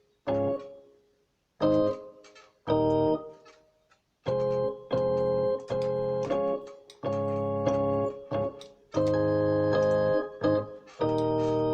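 Casio CTK-3500 keyboard playing its Rock Organ preset (tone 51): a run of organ chords that start and stop sharply, short stabs at first, then longer held chords from about four seconds in.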